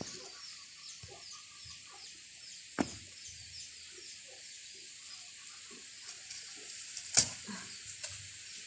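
Chickens clucking softly, with high, rapid chirping in the first half. A few sharp knocks come through, the loudest about seven seconds in.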